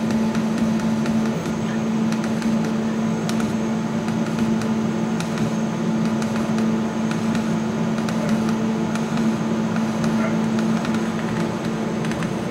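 Chinese CO2 laser cutter running while engraving a slice of bread: a steady mechanical hum with a low steady tone from its fans and pumps, and faint ticks as the head moves.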